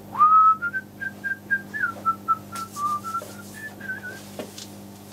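A man whistling a short tune: a clear note that slides up at the start, then steps up and down through a string of short notes and stops about four seconds in. A few light knocks and a faint steady low hum lie underneath.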